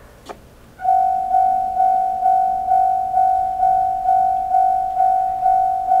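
Japanese railway level-crossing electronic warning bell, JR Central-type sound, starting up about a second in and ringing a single tone about twice a second, each strike fading before the next. A single short click comes just before it starts.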